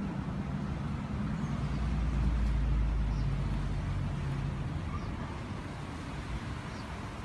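A motor vehicle's engine passing by on the road, a low rumble that swells about two seconds in and then slowly fades away.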